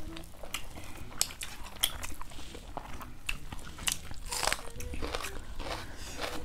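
Close-up eating sounds: two people chewing with sharp crunchy bites and small wet mouth clicks, a thicker run of crunching about four and a half seconds in.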